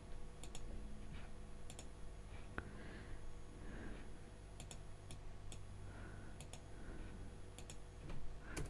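Computer mouse button clicked several times at irregular intervals, each a quick press-and-release double click, over a faint steady hum.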